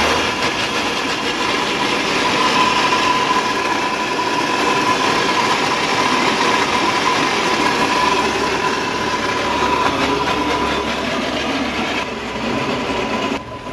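E-rickshaw rear drive, the electric motor and crown-and-pinion differential, spinning a lifted rear wheel at full throttle, making a very loud mechanical noise with a steady whine that eases slightly near the end. The mechanic cannot yet tell whether the noise comes from the wheel, from worn motor bearings or shaft, or from the crown gear.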